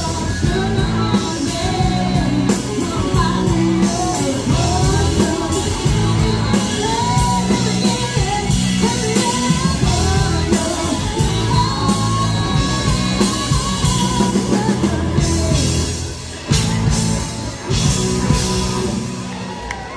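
Live rock band playing: women singing over electric guitars and a drum kit.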